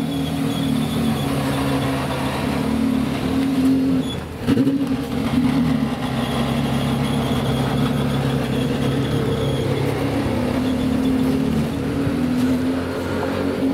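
Porsche Carrera GT's V10 engine running at low revs as the car pulls away slowly. The note stays steady, with a short break about four seconds in.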